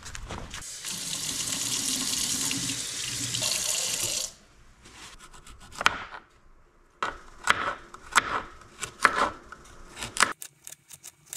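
Kitchen tap running into the sink for about three and a half seconds, then shutting off. After that comes a knife slicing a carrot on a cutting board: a dozen or so sharp, uneven taps.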